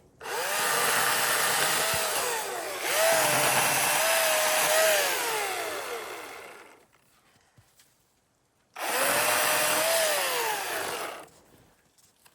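Husqvarna 350i battery chainsaw run in three bursts of a few seconds each, its steady whine dropping away each time the trigger is released.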